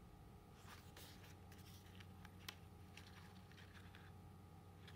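Faint paper rustling and light ticks as the pages of an album photo book are handled and turned, with one sharper click about two and a half seconds in.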